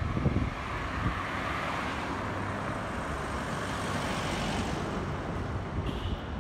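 Road traffic noise: a motor vehicle's engine and tyres passing, swelling and fading around the middle over a low rumble, with a brief high beep near the end.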